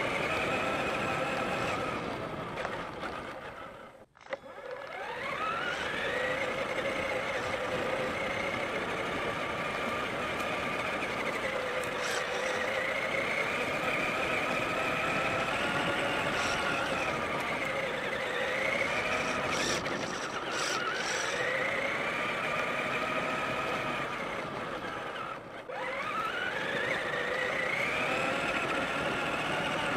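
Traxxas Summit RC truck's electric motor and drivetrain whining as it drives, the pitch rising and falling with the throttle. It dies away almost completely about four seconds in and dips again near the end, each time winding back up in a rising whine.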